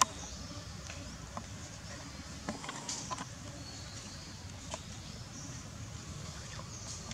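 Outdoor background noise: a steady low rumble with faint high chirps and a few brief clicks, the sharpest right at the start.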